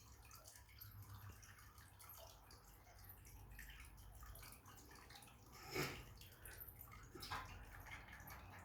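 Near silence: faint room tone, with one soft knock about six seconds in and a fainter one about a second and a half later.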